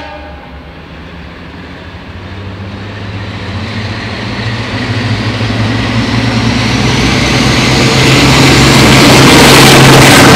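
Class 52 'Western' diesel-hydraulic locomotive D1015 Western Champion, with twin Maybach V12 engines, approaching under power and growing steadily louder until it passes close by near the end. A steady low engine note sits under the rising noise, with a faint high whine climbing in pitch as it nears.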